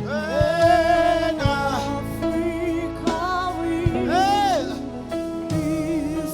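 A gospel worship chorus: a voice singing long, slow notes with vibrato over a steady instrumental accompaniment.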